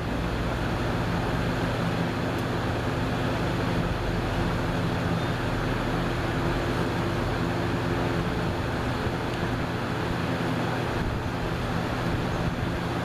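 A 1987–88 Lasko Galaxy 3746 box fan running on high: a steady rush of air over a low motor hum.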